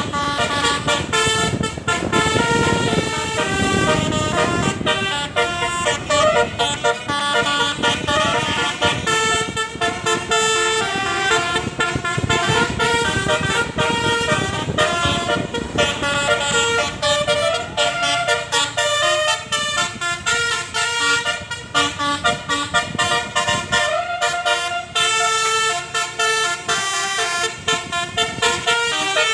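Bus telolet basuri horn playing a melody: multi-tone air horn notes that jump from pitch to pitch in quick steps, over a low rumble.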